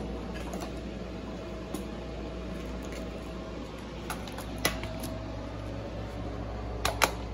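Steady low background hum, with a few short sharp clicks and knocks from hand tools and parts being handled. The loudest is a click about halfway through, then a quick double click near the end.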